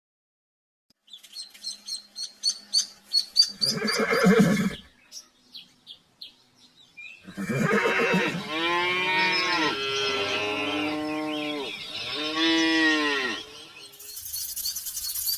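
A string of quick high chirps, then a short low animal call. After that a farm animal calls several times in long calls that waver in pitch, for about six seconds.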